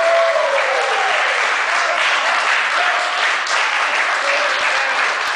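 A group of people clapping and cheering, with a few voices calling out in the first second.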